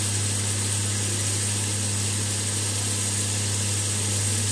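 A steady low machine hum with an even hiss above it, unchanging throughout.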